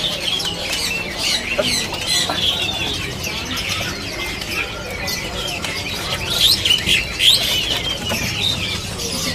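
Many caged songbirds chirping and calling over one another, a busy chorus of short, high chirps and whistles.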